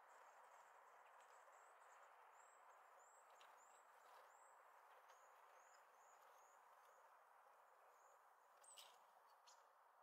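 Near silence over a steady hiss, with faint high, thin calls of small songbirds: a run of short, quickly repeated notes through the middle. A single sharp tick comes near the end.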